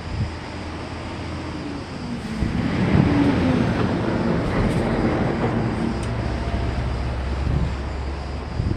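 Sea surf: a wave breaks and washes up, swelling about two seconds in and slowly fading, with wind rumbling on the microphone.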